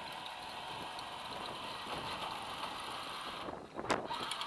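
A 21st Century Toys 1:9 scale radio-controlled M1 Abrams tank drives across wooden dock boards, its electric drive and tracks running steadily. There is one sharp knock near the end.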